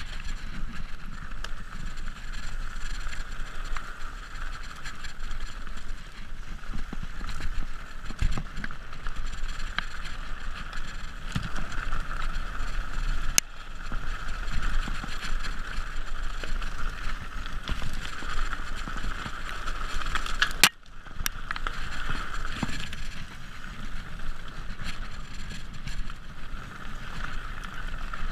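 Mountain bike riding fast downhill over a rough trail of stones and dry leaves: a steady rushing noise of tyres rolling over the ground, with a few sharp knocks, the loudest about twenty seconds in.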